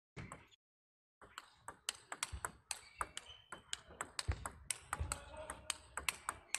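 Table tennis rally: the plastic ball clicking sharply off the rackets and table in quick succession, several hits a second, with a few short squeaks and low thuds between the hits. It starts about a second in, after a brief sound and a moment of silence.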